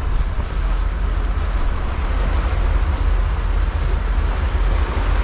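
Boat running under way: a steady low engine drone under the rush of the churning wake water and wind.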